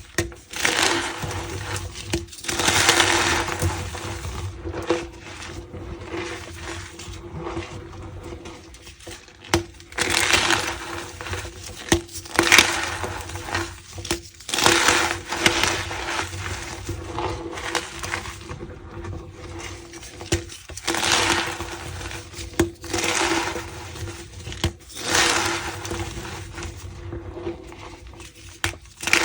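Reformed gym chalk being pressed and crushed, squeaking and crunching in repeated strokes a couple of seconds apart.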